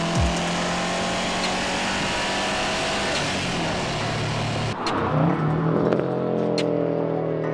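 Subaru WRX STI hatchback's turbocharged flat-four engine and exhaust running hard as the car is driven at speed, with a change in revs about five seconds in.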